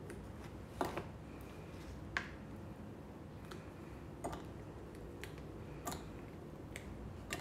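Light, scattered clicks and taps, about six over several seconds, as set pieces of confectionery glaze are popped out of a silicone mould and dropped into a saucepan.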